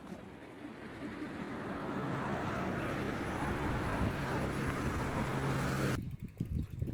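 A motor vehicle passing on the road: engine hum and road noise growing steadily louder, then cut off abruptly about six seconds in. A few soft thumps follow near the end.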